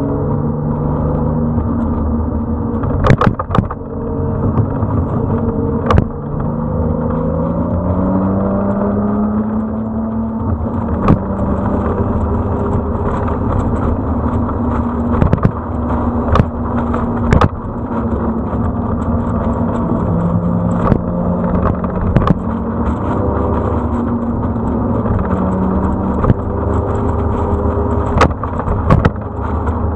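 Motorcycle engine running at road speed, its pitch climbing and levelling off with the throttle several times, over a steady low rumble of wind on the microphone. Sharp knocks break through now and then.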